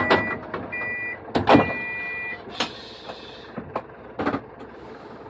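Electronic beeps from the cabin equipment of a stopped Dual Mode Vehicle: a short beep at the start, another about a second in, and a longer one lasting about a second. Sharp clicks and knocks come with them, the loudest about a second and a half in, and a couple more later.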